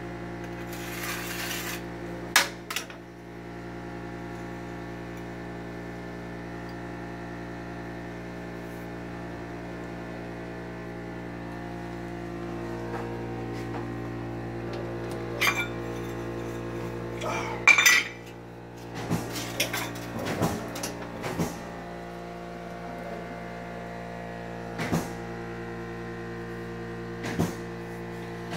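Ceramic floor tiles clinking and knocking against each other and the floor as they are handled and set into thinset, in scattered sharp clicks with a busier cluster around the middle. Under it runs a steady electrical hum.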